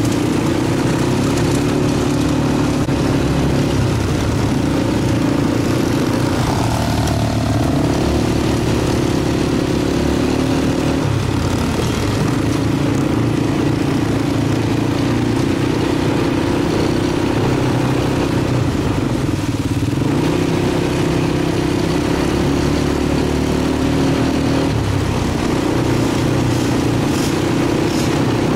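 Quad bike engine running steadily under way, its pitch stepping up and down now and then as the throttle changes.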